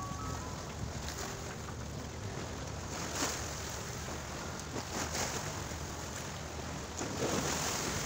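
Small waves washing onto a flooded shore, with wind buffeting the microphone. A few short splashes come about three, five and seven seconds in.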